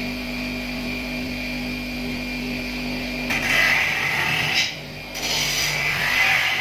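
Bench grinder motor running with a steady hum. About three seconds in, a metal motorcycle mudguard is pressed against the spinning wire brush wheel, and a harsh scraping hiss rises over the hum as rust is brushed off. The hiss comes in two stretches with a brief break between them.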